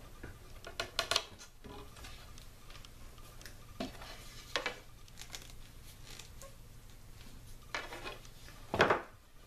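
Scattered clicks and knocks of hand work at a bench: a knife cutting the leather lace of a bow's grip wrap near the start, then the wooden bow and knife knocking against a plastic cutting board as the bow is handled, the loudest knock near the end.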